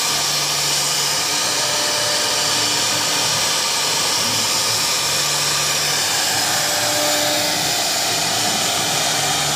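Three-spindle CNC wood router running: a steady, loud whirring hiss, with a low hum that comes in twice for about a second.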